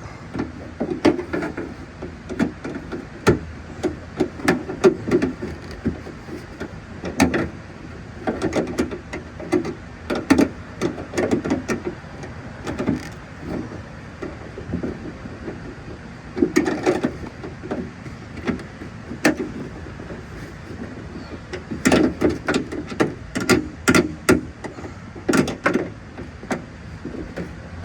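Irregular clicks and knocks of a 10 mm wrench turning a bolt on a door handle inside a truck door, with dull thuds of tool and hand against the door.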